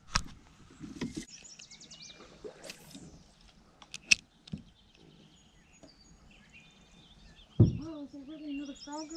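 A few sharp clicks and knocks from a small spinning reel and rod being handled, the loudest about four seconds in, over songbirds chirping and trilling. Near the end a person's drawn-out voice sounds.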